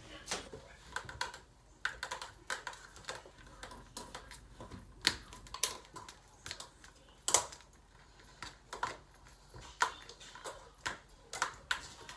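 Irregular light clicks and taps of hands working cooked rice in a plastic container, a few a second, the loudest about seven seconds in.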